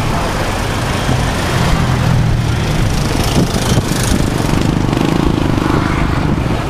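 Vehicle engine running steadily while on the move, with road and traffic noise from a town street.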